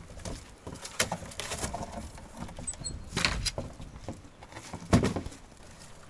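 Scattered rustling and knocks of a cardboard box being handled and folded, with a louder scrape about three seconds in and a sharp knock near five seconds.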